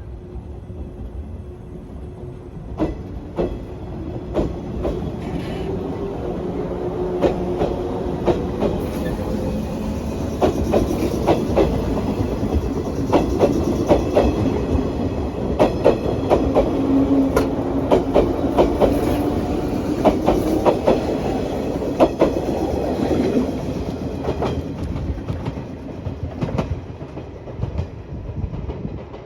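113 series electric train running past, its wheels clicking over the rail joints. The sound builds up toward the middle and fades near the end.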